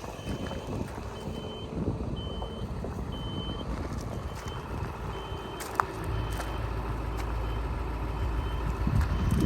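New Holland 555E backhoe loader's reverse alarm beeping about once a second over the diesel engine running. The engine grows louder about six seconds in, and there is a single sharp clunk just before that.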